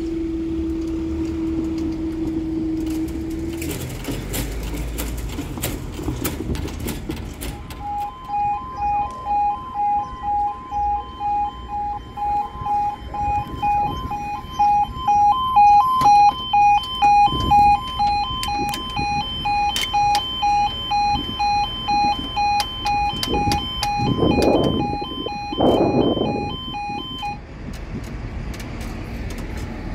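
Level crossing warning alarm sounding in a rapid two-tone pulse, about two pulses a second, from about eight seconds in until near the end. Before it, a steady low hum runs for the first few seconds while the barriers rise, and then stops.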